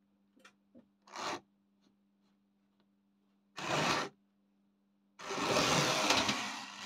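A 1950s Tri-ang model railway's small tank engine and turntable at work: three short bursts of rough whirring and rubbing, the last and longest about two seconds. A steady low electrical hum runs underneath.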